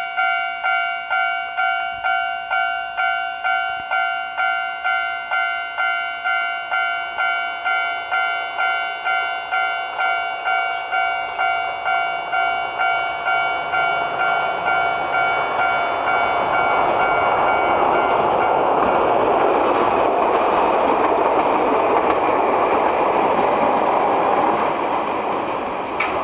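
Japanese railway level-crossing alarm ringing: a steady electronic ding repeating about twice a second. From about 13 seconds in, a Nagano Electric Railway train's running noise swells over it and takes over as the train passes, easing off near the end.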